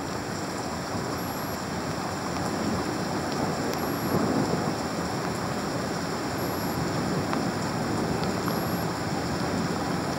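Heavy thunderstorm rain pouring steadily, with a few faint ticks and a slight swell in loudness about four seconds in.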